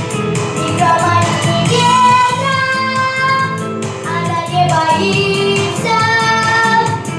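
A girl singing a song over a backing track with a steady beat, holding long sung notes.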